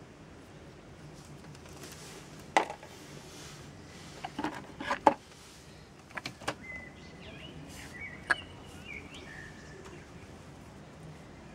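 Sharp clicks and knocks of hard cast-resin orgonite pieces being handled, coming singly and in quick clusters. A bird chirps several times in the middle.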